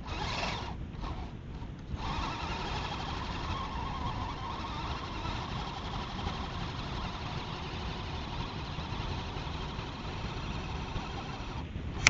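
Axial SCX10 RC scale crawler's electric motor and gearbox whining steadily under load as it climbs a sand bank, its tyres spinning and throwing sand. A short burst of the same in the first second, then a long continuous run from about two seconds in that stops just before the end.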